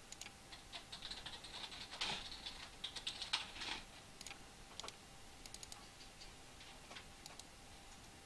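Faint clicking and tapping of a computer keyboard and mouse. The clicks come in a quick run during the first few seconds and are sparser after that.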